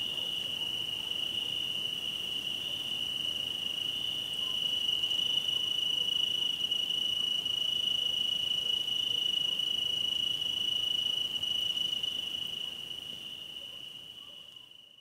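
A chorus of crickets trilling on one steady high pitch, fading out over the last few seconds.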